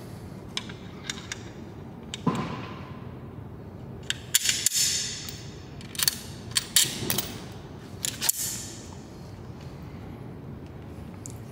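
Scattered metallic clicks and clinks of bolts, washers and a seat load-cell sensor being handled and set against a steel seat rail, with a few short rustles in between.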